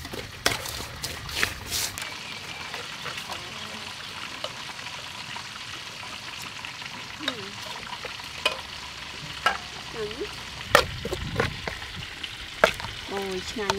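Wooden chopsticks stirring shredded green mango in a metal bowl, with sharp clicks and knocks against the bowl scattered through, over a steady hiss.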